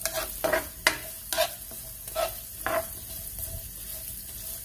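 Diced onion sizzling in hot oil in a nonstick pan, with a spatula scraping and stirring through it in about six quick strokes over the first three seconds, then a steady sizzle.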